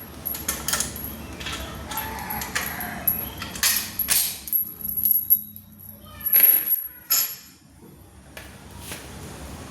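Metal tools and parts of a scooter's CVT casing clinking and clattering as they are handled during disassembly, a run of sharp knocks with a high metallic ring, loudest a little under seven seconds in.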